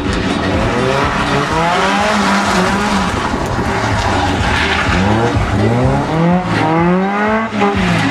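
Westfield sports car's engine driven hard, the revs climbing and dropping several times in quick succession.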